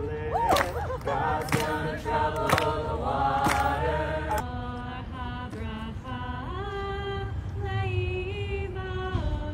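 Voices singing without instruments, with a sharp beat about once a second for the first four seconds or so; then the sound cuts to a slower song of long held notes.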